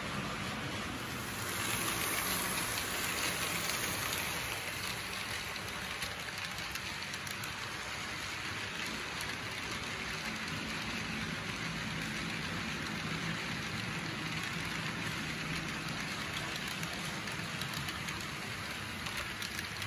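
HO scale freight cars rolling along model track: a steady rattling hiss of small metal wheels on the rails, with a low hum underneath. It swells a little a couple of seconds in.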